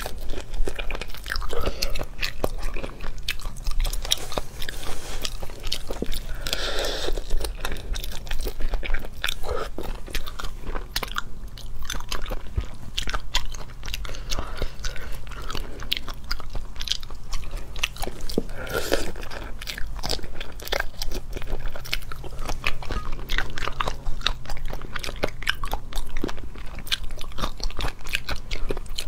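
Close-up chewing and biting of raw drunken shrimp, with many small crunching clicks of shell and wet mouth sounds. A steady low hum runs underneath.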